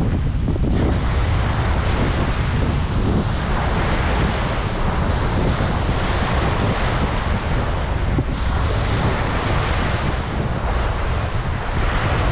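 Ocean surf washing onto a beach, waves breaking and running up in a continuous wash that swells and eases every few seconds, with wind buffeting the microphone as a low rumble underneath.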